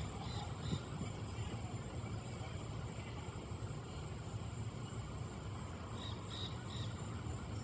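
Night outdoor ambience: a steady low rumble with a constant high insect drone. Two brief groups of short, high chirps sound, one at the start and one about six seconds in.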